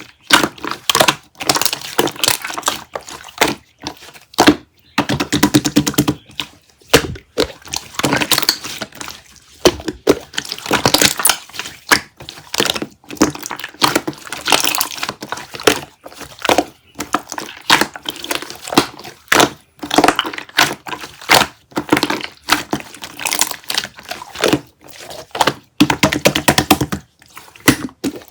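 Repeated crunching and crackling: dense runs of small sharp cracks in bursts of a second or two, with short pauses between.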